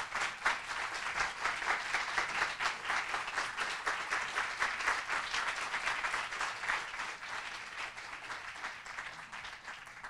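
Audience applauding: dense, even clapping from many hands that thins and fades away over the last few seconds.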